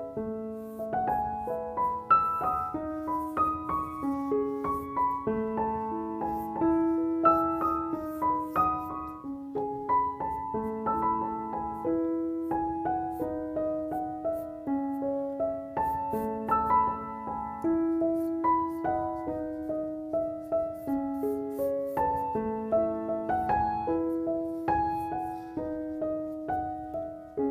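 Background piano music: a melody of separate struck notes over a repeating lower line, at a steady, moderate pace.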